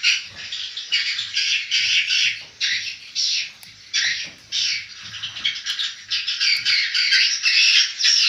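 Dense, continuous twittering of many swiftlets in a swiftlet house, with overlapping sharp chirps.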